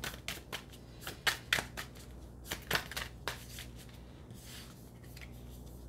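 A deck of tarot cards being handled and shuffled by hand: a quick run of sharp card clicks and flicks that thins out after about three seconds into a few softer ones.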